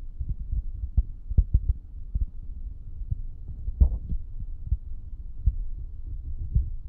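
Irregular dull, low thumps and knocks over a low rumble, the loudest about four seconds in.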